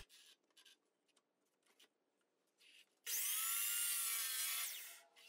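A DeWalt sliding miter saw starts suddenly about three seconds in and runs for under two seconds, trimming the edge of a thin plywood sign, then winds down. Before it there are only a few faint clicks.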